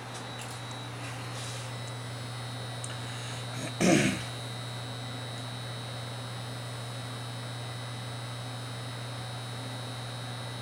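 Steady low electrical mains hum with a faint high whine, and one short noise about four seconds in.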